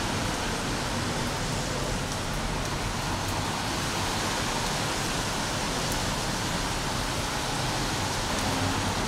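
Steady rain falling, an even hiss that runs on without a break.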